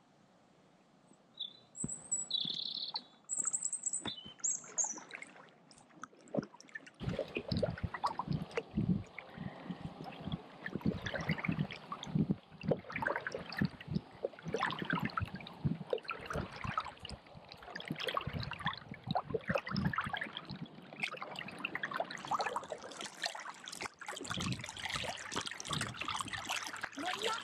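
Small birds chirping over the first few seconds, then, from about seven seconds in, close-by water splashing and dripping in an irregular run that carries on: a kayak paddle dipping into the canal, with water running off the blades.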